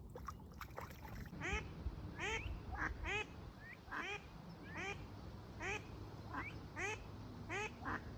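Ducks calling: a steady run of short quacking calls, each rising in pitch, about one every two-thirds of a second, starting about a second and a half in.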